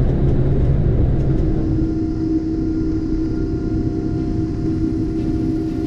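Boeing 777-300ER's GE90 turbofan engines at takeoff power during the climb-out: a steady rumble. About a second and a half in, a steady hum higher in pitch sets in over it.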